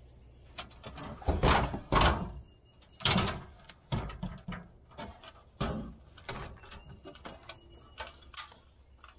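Aluminum Werner ladder clanking and rattling against a pickup truck bed as it is pulled out and lifted, with a few loud knocks in the first half and lighter clatters after.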